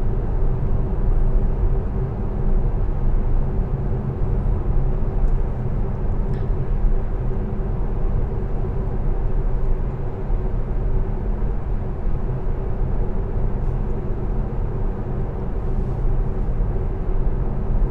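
Steady road noise inside the cabin of a Tesla Model S electric car cruising along a paved road.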